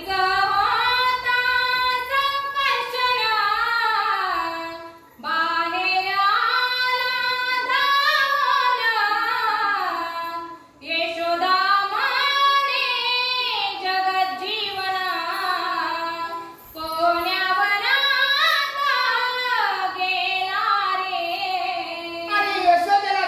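A female voice singing a devotional verse in long, melodic, held phrases of about five seconds each, with short breaks between them.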